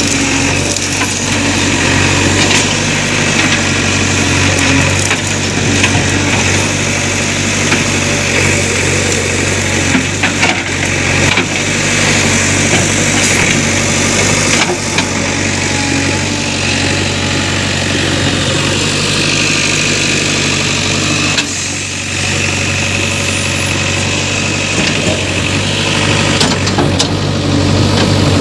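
JCB 3DX backhoe loader's diesel engine running steadily, with a few sharp knocks and cracks as the machine works the tree and wood breaks.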